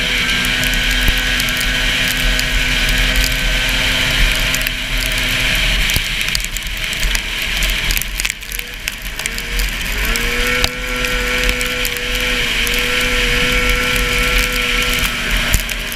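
A 440 super stock racing snowmobile's two-stroke engine running hard at high revs, with a constant hiss over it. About five seconds in the engine note drops away, and near ten seconds in it comes back with a rising pitch as the throttle opens again.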